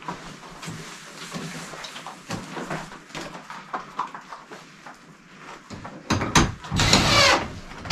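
Light clicks, taps and rubbing of blue PEX tubing being pressed by hand into wall clips, then, about six seconds in, a few louder rasping sounds that stop just before the end.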